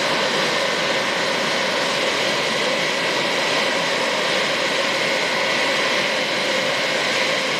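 Jet engines of an OC-135B Open Skies aircraft running at low taxi power: a steady high whine over a broad, even rush.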